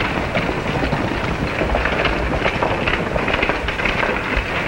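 Horse hooves on a dirt street, irregular knocks under heavy crackle and hiss from an old film soundtrack.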